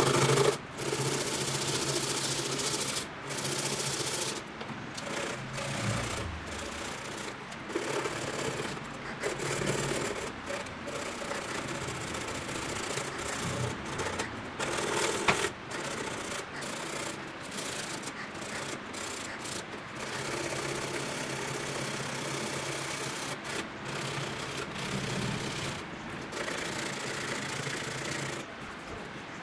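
Hand sanding of a broken racket frame clamped to a bench: rough, repeated rubbing strokes of abrasive on the frame, coming and going with short pauses.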